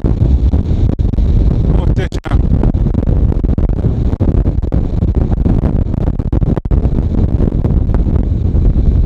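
Heavy wind buffeting on the microphone of a camera carried on a moving bicycle: a dense, steady low rumble with a brief dip about two seconds in.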